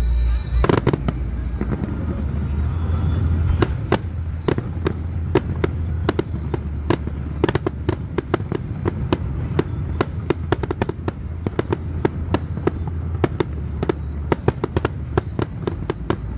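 Fireworks display: a loud bang about a second in, then rapid crackling reports, several a second, over a steady low rumble.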